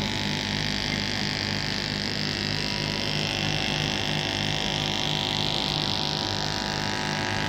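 Steady electrical buzz and hiss with a low pulsing hum underneath.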